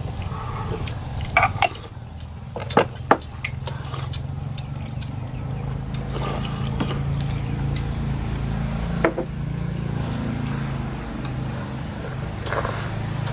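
Scattered clinks and knocks of spoons and chopsticks against porcelain pho bowls as people eat, over a steady low hum.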